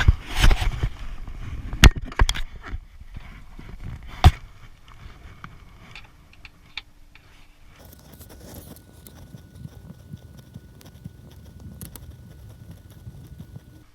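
Sharp knocks and clunks, several in the first few seconds, then steady rubbing and scraping: a Renault Twizy's add-on side window panel being handled and worked loose from the car.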